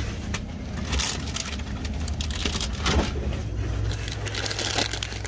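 Steady low hum of shop background noise with scattered light clicks and rustles, brightest near the end as a bag of sweets is handled on a metal peg.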